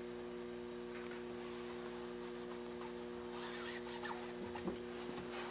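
Fingers rubbing aircraft fabric tape down onto the fabric-covered surface so it tacks in place: a faint, soft scratching, loudest about three and a half seconds in, over a steady low hum.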